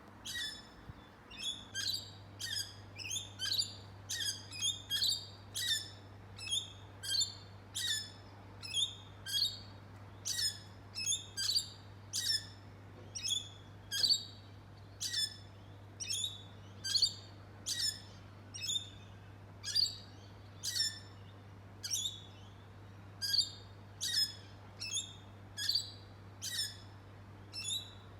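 A bird chirping over and over, about two short, high chirps a second, each falling quickly in pitch.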